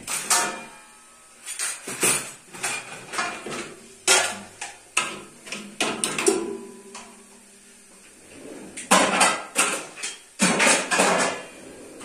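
Dishes and glasses clattering and clinking as a dishwasher is unloaded: a string of sharp knocks, with one piece ringing briefly about six seconds in.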